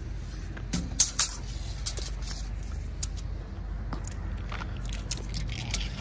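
Scattered light clicks and taps, sharpest a couple of times about a second in, as a steel tape measure is handled and laid across a chest freezer's glass lids, over a steady low rumble.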